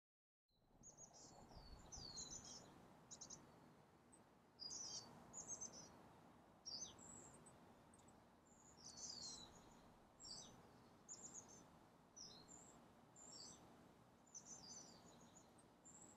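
Faint birdsong: short high chirps and quick falling whistles, scattered with brief gaps, over quiet room tone. It starts about half a second in.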